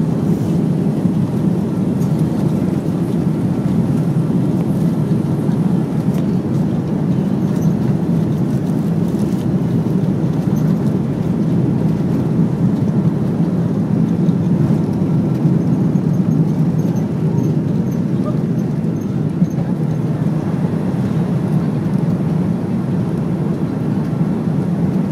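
Cabin noise of an Airbus A330-300 at takeoff thrust: the jet engines and the rush of air over the fuselage make a loud, steady, deep noise through the takeoff run and initial climb.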